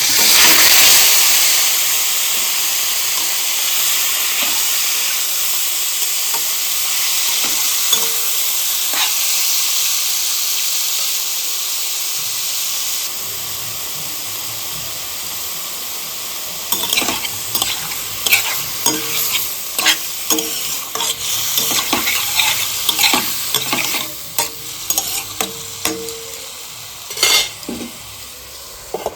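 Food sizzling loudly in hot oil in a pan. The sizzle starts suddenly and eases off gradually. From a little past the middle, a spoon scrapes and knocks against the pan as the food is stirred.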